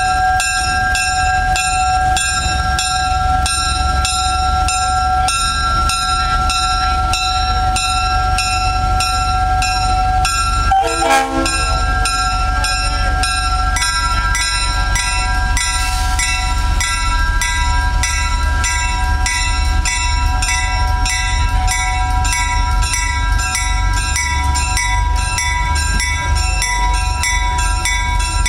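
Small diesel switcher locomotives running: a steady engine drone under a whine, pulsing evenly several times a second. There is a brief falling sound about eleven seconds in, and soon after the whine steps up in pitch.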